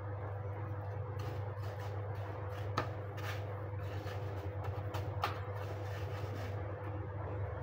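A steady low hum, with a couple of light sharp taps and soft rustling as coconut laddus are rolled in desiccated coconut in a steel plate.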